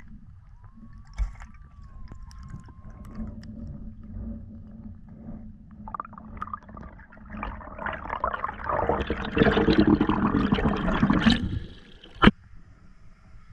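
Water gurgling and rushing around an underwater camera as it rises through a lake. The rushing grows loud in the seconds before it breaks the surface, then cuts off, followed by a single sharp knock.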